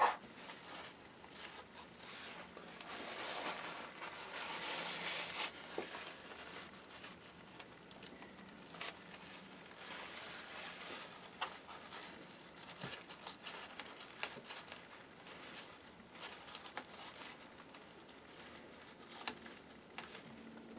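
Faint rubbing and scrubbing with scattered small clicks and taps as old thermal paste is wiped off laptop cooling parts. The rubbing is strongest for a couple of seconds a few seconds in.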